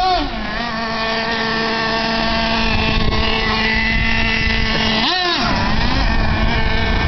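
Traxxas T-Maxx RC truck's 3.3 nitro engine running at a steady high pitch. It revs briefly at the start and again about five seconds in, the pitch rising and falling each time.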